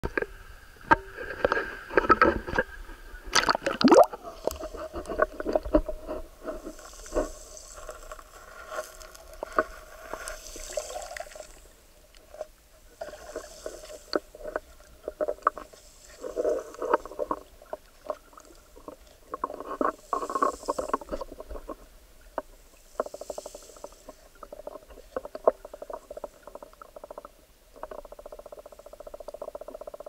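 Shallow seawater sloshing and splashing with loud knocks in the first four seconds, then muffled underwater noise full of irregular small clicks and knocks.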